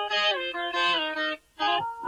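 Background music: a blues lead guitar playing single notes that slide downward in pitch, with a brief break about a second and a half in before the next note.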